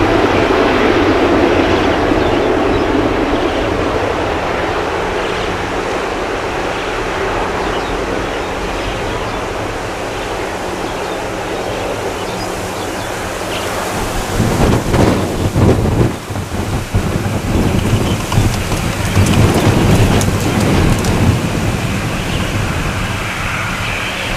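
Boeing 787-10 jet airliner's engines: a loud rush with a steady low hum that slowly fades, then, about 14 seconds in, a rough low rumble that swells and crackles irregularly.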